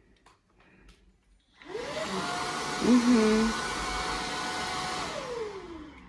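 Redroad V17 cordless vacuum cleaner, used handheld with an upholstery nozzle, switched on about two seconds in: its motor whine rises as it spins up. It runs steadily for a few seconds, then is switched off near the end, the whine falling as the motor spins down.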